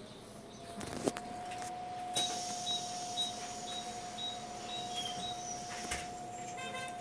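Cabin noise inside a moving city bus: a steady whine runs throughout, with a couple of knocks and rattles from the cabin about a second and two seconds in.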